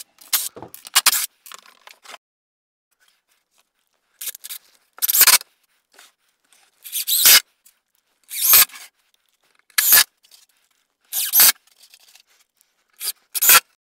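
Cordless Craftsman 20V impact driver run in six short bursts about a second and a half apart, driving screws into old barn board, with a few light knocks of handling the wood before the first burst.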